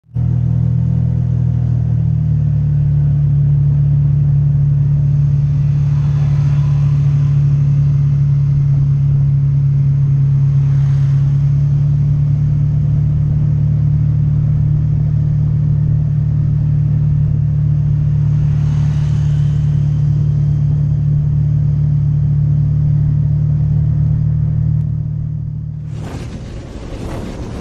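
Honda Vario 150 scooter's single-cylinder engine and CVT running at steady revs while cruising, a low, even drone with faint swells of other traffic passing. Near the end it cuts abruptly to a brighter, hissier sound.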